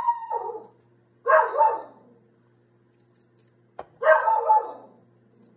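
A dog barking: three barks, the second about a second after the first and the third after a longer pause.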